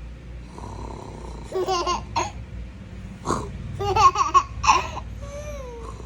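A young child laughing in bursts, first about a second and a half in, then louder from about three to five seconds in, over a man's low snoring.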